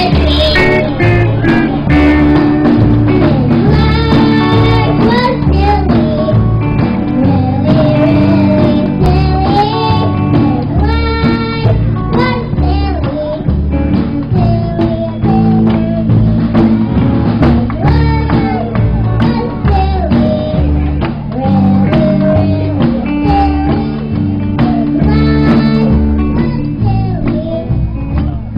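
Live band playing a song, a singer's voice carrying the melody over a steady, repeating bass beat.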